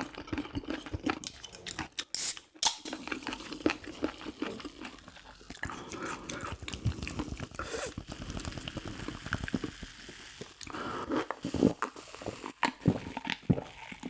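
A person eating close to the microphone: chewing and biting, with many short wet clicks and crunches.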